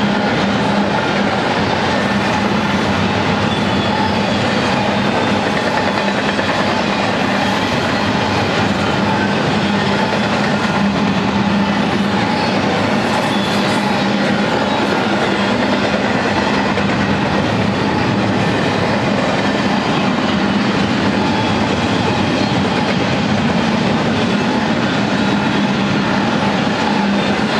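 Double-stack container cars of a freight train rolling steadily past: the running noise of steel wheels on rail, with a steady low hum.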